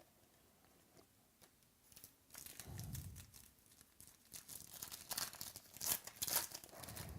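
Trading cards and their plastic packaging being handled, an irregular crinkling and rustling that starts about two seconds in, with a few faint clicks before it.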